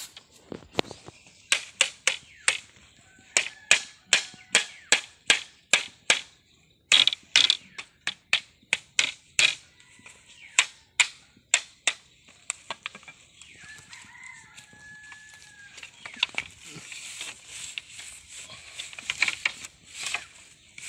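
Bamboo slats of a fence frame being hammered: a steady run of sharp knocks, about two a second, for roughly the first twelve seconds. After that come softer scattered taps and rustling.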